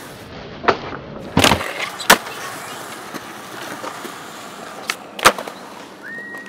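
Skateboard wheels rolling on smooth concrete, broken by several sharp clacks as the board is popped and lands during tricks into manuals. The loudest clacks come about two seconds in and again about five seconds in.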